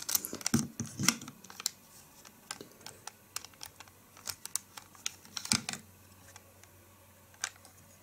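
LEGO bricks of a puzzle box clicking and knocking as fingers push and slide pieces: a run of irregular plastic clicks and taps that thins out after about six seconds, with one more click near the end.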